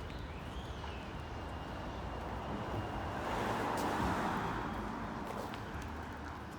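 A car passing in the street, its tyre and engine noise swelling to a peak about four seconds in and then fading.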